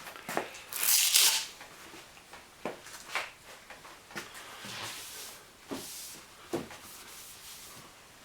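Short, scattered rustling and rubbing noises from handling sandpaper on a headlight lens during hand sanding, with one louder hiss about a second in.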